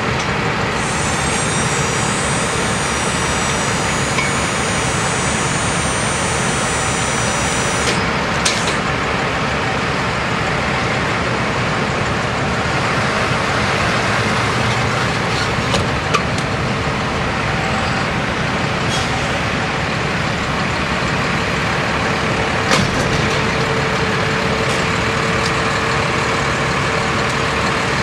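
Steady engine noise of idling trucks, with a few short clanks. A faint high whine runs through roughly the first eight seconds.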